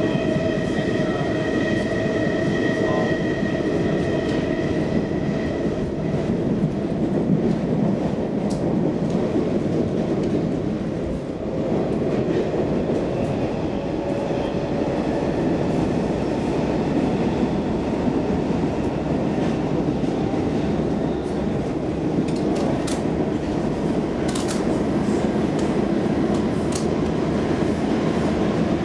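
Stockholm Metro C14 subway car running at speed, heard from inside the car: a steady rumble of wheels on rail. A high whining tone fades out over the first six seconds or so, and a few sharp clicks come late on.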